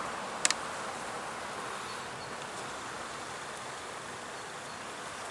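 Honeybees buzzing steadily around an open hive while its frames are being inspected, with one sharp click about half a second in.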